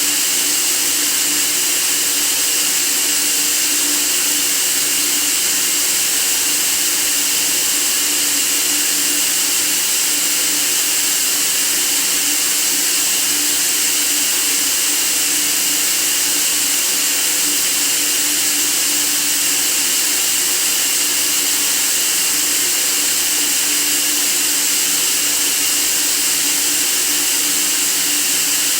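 Steady white noise for sleep: an even, unchanging hiss, strongest in the treble, with a faint steady hum beneath it.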